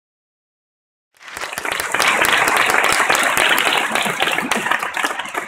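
Audience applauding: the clapping starts about a second in out of silence, is at its fullest for a few seconds, then thins out near the end.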